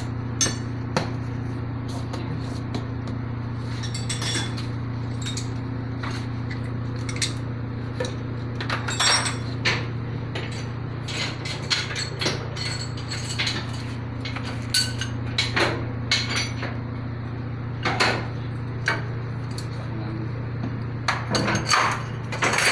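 Irregular metallic clinks and taps of hand tools and bolts against engine parts, fitting the crankshaft main bearing bolts on a Yanmar diesel. A steady low hum runs underneath.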